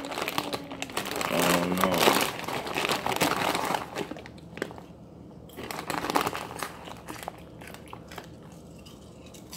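Cape Cod potato chip bag crinkling loudly as it is shaken and rummaged through in the first few seconds, then quieter crackles as chips are pulled out and crunched.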